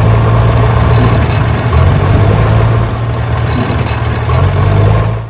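Tractor engine running steadily with a strong low hum.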